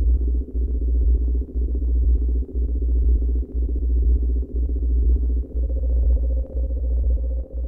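Electronic synthesizer music: a deep bass pulsing in a steady rhythm, with held synth tones above it.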